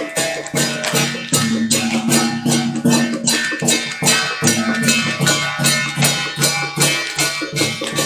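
Music with a steady, quick percussion beat, about three strokes a second, over sustained instrumental tones.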